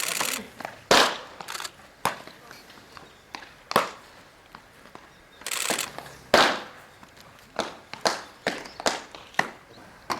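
Bullpen fastballs smacking into the catcher's mitt: two sharp, loud pops about five seconds apart, each just after a short rushing hiss, with lighter knocks and taps in between.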